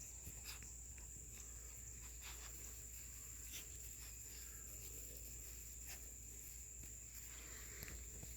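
Steady high-pitched insect trill in the background, with faint rustling and a few light clicks and knocks from puppies moving about in grass.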